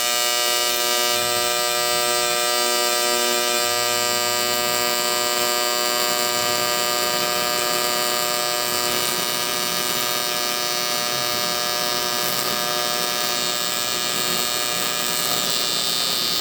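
AC TIG welding arc on aluminum, a steady, unbroken electric buzz.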